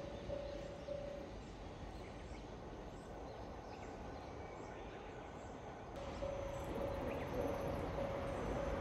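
Station train-approach warning indicator beeping a steady tone about twice a second, stopping about a second in. After a lull of open-air noise with faint bird chirps, the beeping starts again about six seconds in to warn of an approaching freight train, as a low rumble builds near the end.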